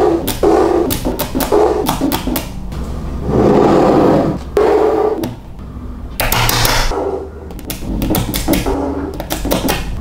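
Small magnetic balls clicking and rattling against each other as they are handled and snapped into place: a run of sharp, irregular clicks mixed with rough rattling.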